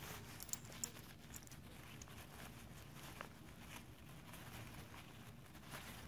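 Faint rustling of nylon hammock fabric and cord being worked by hand, with a few light ticks.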